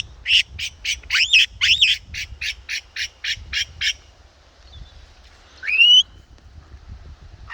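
A pet bird squawking: a quick run of about a dozen harsh calls, roughly three or four a second, for the first four seconds, then one rising call about six seconds in.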